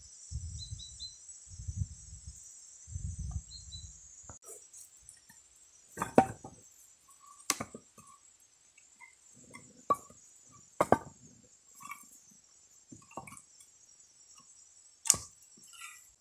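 Footsteps crunching through grass and brush under a steady high insect buzz, then, about four seconds in, wooden knocks and clunks as cut branch logs are picked over and shifted in a pile, a few of them sharp.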